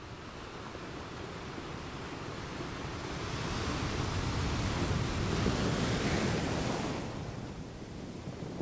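Mountain stream rushing and splashing over boulders in a small cascade, with wind buffeting the microphone. The rush swells and grows hissier in the middle, then eases near the end.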